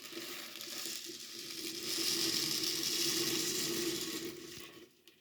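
Water pouring steadily for washing clothes, a smooth hiss that swells in the middle and cuts off suddenly near the end.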